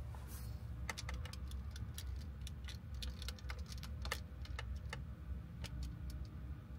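Small plastic clicks from a clip-on battery fan's angle-adjustment joint as its head is tilted and turned by hand: about twenty irregular clicks over some five seconds, over a low steady hum.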